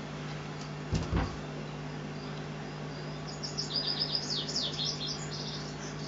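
Birdsong played through a TV's speakers from a bird video for cats: a run of quick high chirps through the middle, over a steady low hum. Two short knocks come about a second in.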